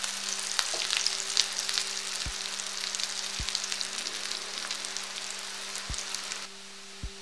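Alu vadi slices (colocasia-leaf rolls) shallow-frying in a little hot oil in a kadhai, sizzling and spitting steadily. A few soft low knocks come through, and the sizzle cuts off abruptly near the end.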